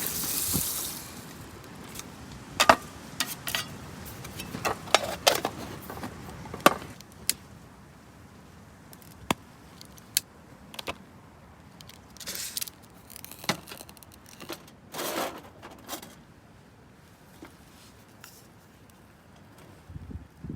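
Small hard objects being handled: a run of sharp clinks and clatters, busiest in the first seven seconds, with a few brief rustles later on.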